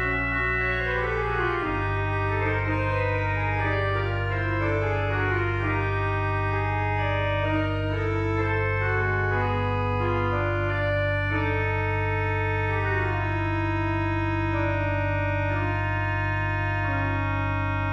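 Pipe organ playing a showy contrapuntal voluntary: two manual lines weave in counterpoint over a sustained pedal note, which changes about two seconds in. From around eleven seconds the upper parts settle into longer held chords.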